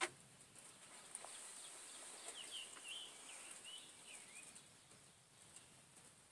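Faint bird chirping, a short run of quick whistled notes a couple of seconds in, over a quiet background, after a single sharp click at the very start.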